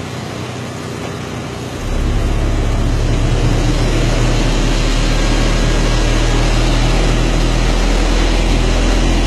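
Competition car-audio subwoofer system in a Ford pickup truck playing a song's deep bass at contest level. The bass comes in about two seconds in and holds steady, measuring about 144 dB on the SPL meter, centred near 39 Hz, the frequency this truck plays loudest at.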